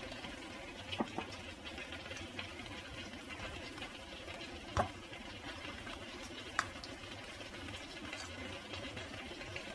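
Creamy carbonara sauce simmering in a frying pan on a gas stove, with a steady bubbling hiss and a few sharp pops. The loudest pop comes about five seconds in.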